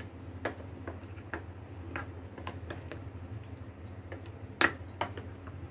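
Metal spoon stirring semolina batter in a glass bowl, clicking and clinking against the glass at an uneven pace, with one louder clink about four and a half seconds in.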